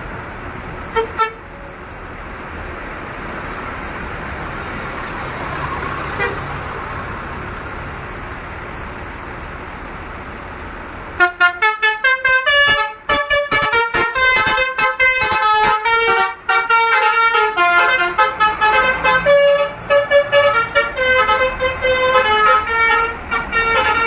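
Diesel bus engine running steadily, with two short horn toots about a second in. From about halfway, a Basuri telolet multi-tone bus horn plays a fast tune of rapidly changing notes, loud and sustained.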